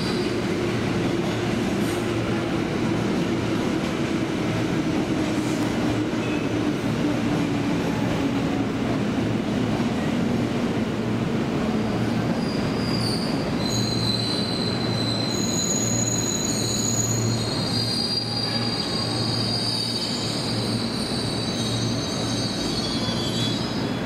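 Ex-JR East 205-series electric commuter train pulling into the platform and braking to a stop. Its running whine falls slowly in pitch as it slows, then high brake and wheel squeals set in about halfway through and carry on to the stop, over a steady low hum.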